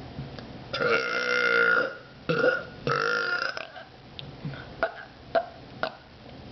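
A person burping on purpose: one long burp with a steady pitch about a second in, then two shorter burps, followed by a few faint clicks.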